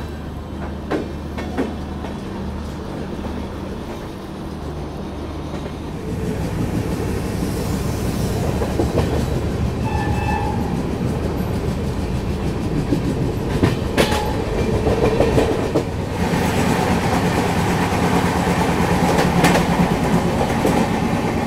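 Running noise of the Shatabdi Express's coach wheels heard at an open door, the wheels clicking over rail joints and points. A steady low hum for the first few seconds gives way to louder, denser rolling from about six seconds in as the train gathers speed, with sharp clacks near the middle and toward the end.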